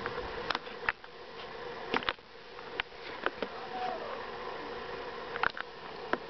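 A steady low buzzing hum with about ten short, sharp clicks and taps scattered through it.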